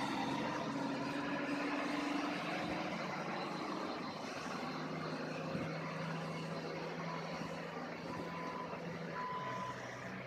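Diesel engine of a large rigid mining dump truck running steadily as the truck drives away, its low hum slowly fading. Two short high beeps sound about a second apart near the end.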